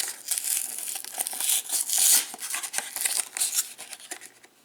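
Trading-card packaging being handled and torn open: crinkling and rustling with many quick crackles, loudest about two seconds in.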